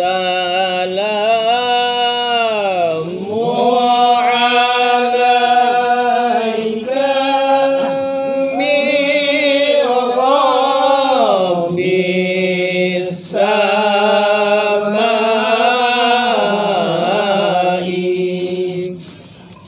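Men's voices chanting zikir and selawat in the Malay marhaban style: long, drawn-out melodic phrases with gliding ornaments. There is a short break about thirteen seconds in, and the chant trails off near the end.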